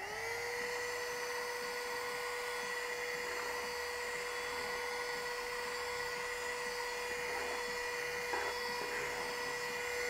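Agaro HVC1081 cordless handheld car vacuum cleaner switching on, its small motor spinning up within about half a second to a steady whine. It then runs at an even pitch with its flexible hose attached, cleaning the car floor.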